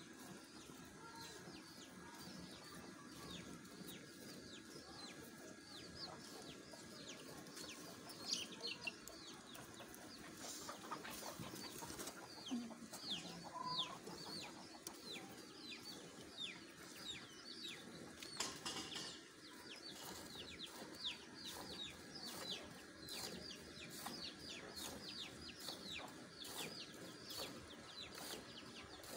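Hand milking of a cow into a steel pail: the milk streams squirt in a quick, even rhythm of about two to three strokes a second as the hands alternate on the teats.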